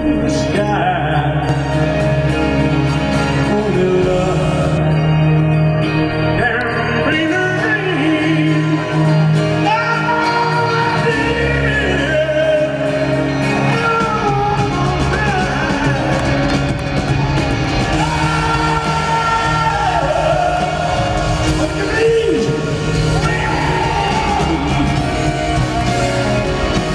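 Live rock band playing in a large hall, recorded from the audience: a male singer sings long, gliding vocal lines over electric guitar, bass and drums.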